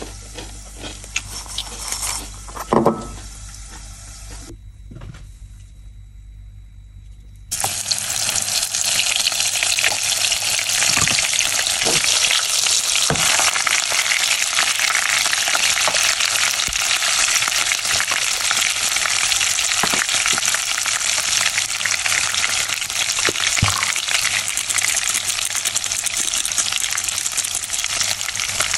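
Garlic cloves, lemongrass stalks and ginger frying in a saucepan of hot oil: a steady, dense sizzle with occasional pops that starts abruptly about a quarter of the way in. Before it come a few knocks and handling sounds over a low hum.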